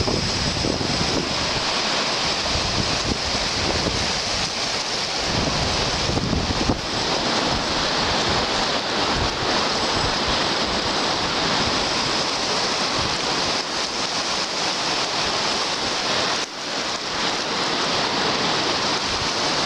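Small lake waves washing in around the shallows, with steady wind buffeting the microphone.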